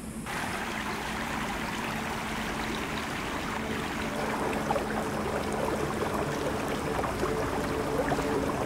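Shallow stream running and trickling over rocks, cutting in suddenly just after the start, with closer splashes and drips of water in the second half.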